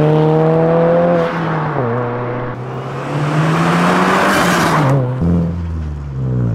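Subaru VB WRX's 2.4-litre turbocharged flat-four pulling hard under acceleration. The engine note climbs through the revs and drops abruptly at two upshifts, about two seconds in and again about five seconds in.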